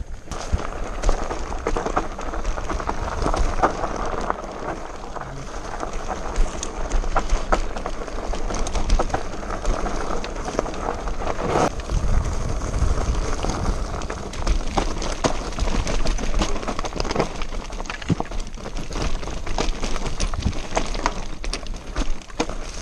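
Scott Genius 720 Plus mountain bike riding over rocky trail: a continuous rattle of tyres on stones with frequent small knocks and clatters from the bike, over a low rumble.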